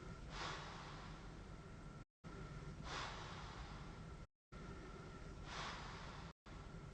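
A sleeper on a CPAP machine breathing heavily through the mask: three airy breaths about two and a half seconds apart over the machine's steady faint whine and hum. The sound cuts out completely for a moment three times.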